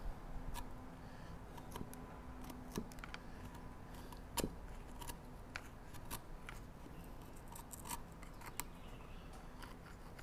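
Bench chisel pushed by hand, paring end-grain wood to clear waste from a bowtie mortise. It makes a series of short, irregular crunching snicks as each small cut is taken, the loudest about four and a half seconds in.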